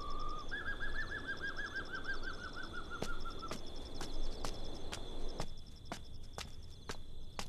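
Night ambience of steady insect chirping. Over it, a bird's pulsed trilling call falls gently in pitch for the first three and a half seconds. From about three seconds in come footsteps, a step every half second or so.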